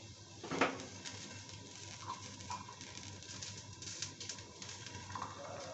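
Food cooking in a pan covered with a steel plate lid, faint crackling and spitting with small scattered ticks, and one brief louder clatter about half a second in.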